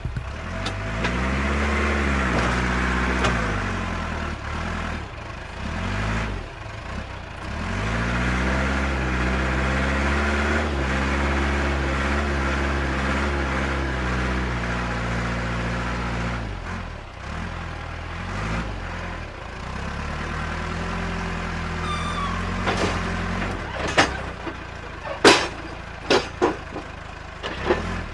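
A truck engine sound revving up and down in several long swells, followed near the end by a few sharp clicks or knocks.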